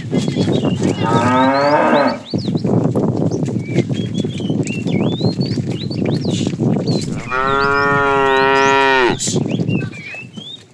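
Cattle mooing twice: a shorter moo about a second in that falls in pitch, then a longer, steady moo near the end.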